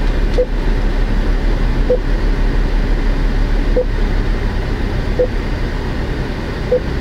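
Five short beeps from the Suzuki S-Presso's touchscreen infotainment unit as its menus are tapped, about one every one and a half to two seconds, over a steady low rumble inside the car.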